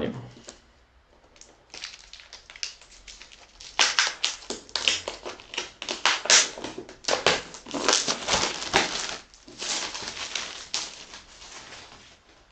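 Plastic shrink-wrap being torn and peeled off a hardcover book: a run of irregular crackling and crinkling that starts about a second and a half in, is busiest in the middle, and thins out near the end.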